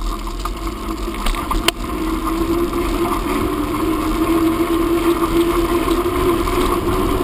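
Bicycle setting off and picking up speed: a few sharp clicks in the first two seconds, then a steady hum from the tyres that rises slightly in pitch and holds.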